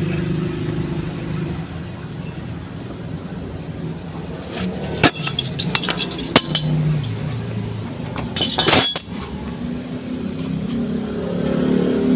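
Several sharp metallic clinks, tools or metal parts being handled, over a steady engine hum.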